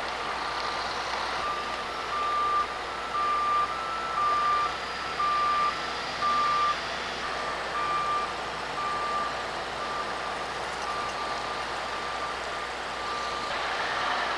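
Backup alarm of a reversing construction vehicle beeping about once a second, loudest for a few seconds and then fading, over a steady hum of engines and site noise.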